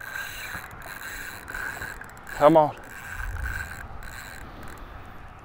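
Spinning reel whirring with a jack hooked and pulling on the line, a steady whine that stops briefly and starts again. A short voiced exclamation comes about two and a half seconds in.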